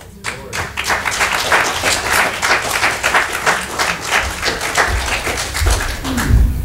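Congregation applauding, a dense patter of many hands clapping that starts just after the opening and carries on, with a low rumble coming in near the end.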